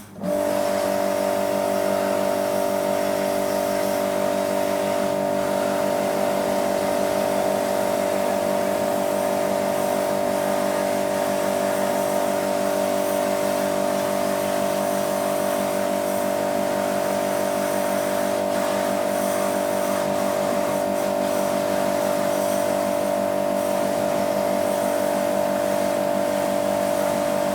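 Electric washer pump running steadily, a constant high-pitched motor hum over the hiss of the water spray, switching on suddenly at the start.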